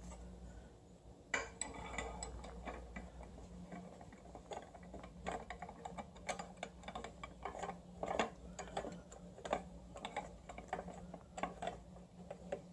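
Scattered light metallic clicks and taps as screws and the billet aluminium starter bracket are handled and fitted on the transmission's adapter plate, irregular and uneven in spacing.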